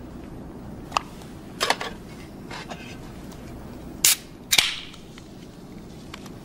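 A few light clicks and clinks of glassware, then a soda can's ring-pull opened about four seconds in: two sharp cracks half a second apart, the second trailing into a short hiss of fizz.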